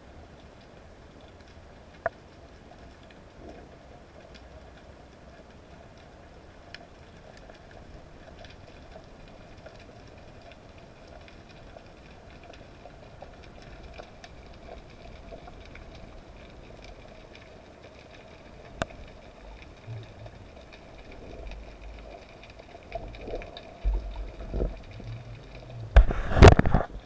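Underwater sound picked up by a freediver's camera: a faint, steady hiss with a few sharp clicks. Near the end come low surges of rushing water as the diver swims up toward the surface, and a loud rush of water in the last second.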